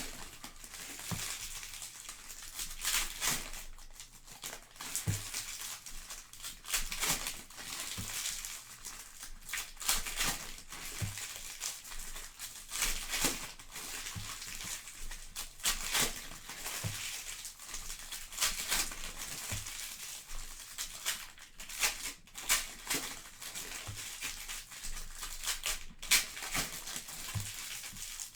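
Plastic trading-card pack wrappers crinkling and rustling in irregular bursts as packs of cards are handled and opened.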